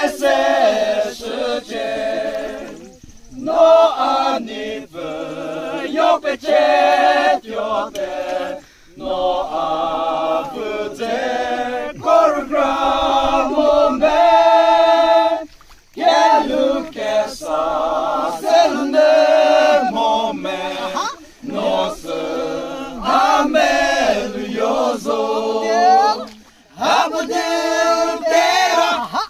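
A group of men singing together in a chorus, in phrases a few seconds long with short breaks between them.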